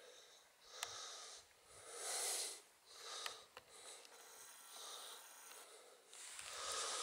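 Heavy breathing close to the microphone: airy, wheezy breaths roughly once a second, with a couple of small clicks in between.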